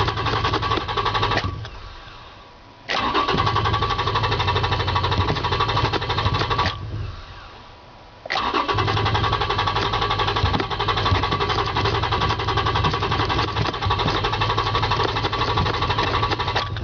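Toyota Tacoma engine being cranked by the starter in three attempts, the first short, the second about four seconds and the last about eight, each stopping abruptly with a pause before the next, without settling into an idle: the truck is hard to start.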